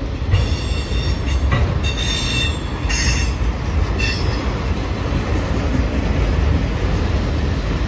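Freight train of autorack cars rolling past: a steady low rumble of wheels on rail, with several short high-pitched wheel squeals in the first half.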